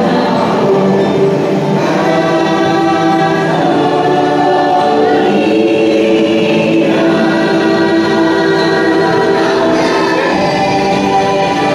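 Choir singing long held notes with music, part of the boat ride's soundtrack played through the cave.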